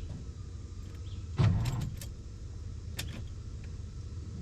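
The jump-start truck's engine idling steadily, with a few sharp clicks and one louder short knock about a second and a half in.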